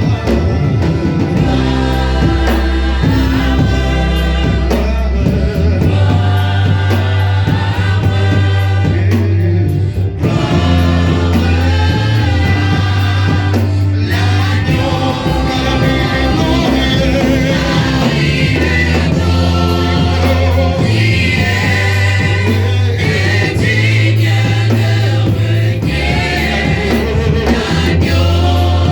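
Gospel worship music: a choir singing over a band with a heavy bass line and drums, loud and continuous.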